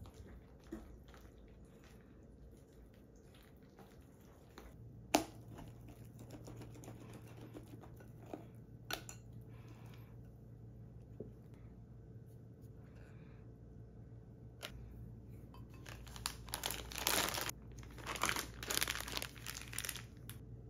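Wire whisk stirring thick pancake batter in a glass bowl: faint wet stirring with scattered clicks of the whisk against the glass. Near the end, a stretch of louder rustling and crinkling.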